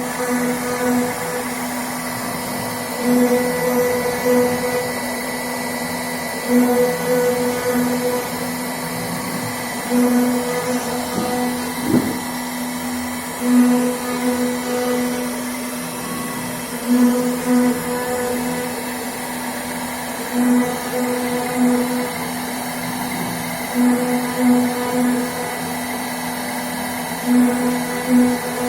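CNC router spindle running steadily while carving an MDF board, a constant hum with a high ring above it, swelling louder every three to four seconds.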